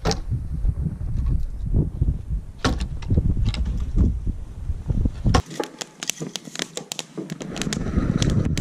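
Firewood logs knocking and clunking as they are pulled off a sled and tossed onto a woodpile, with wind buffeting the microphone. About five and a half seconds in the wind cuts out, and a quick run of sharp clicks and knocks follows at a burning wood stove.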